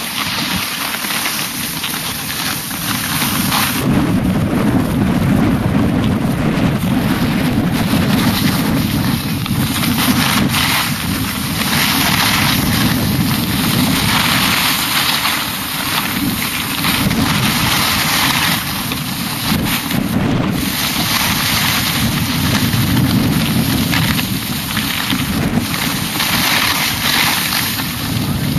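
Wind buffeting the microphone of a camera carried by a moving skier, over a steady hiss and scrape of skis running on packed snow.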